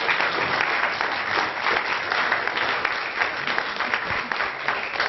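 An audience applauding: many hands clapping together in a dense, steady patter.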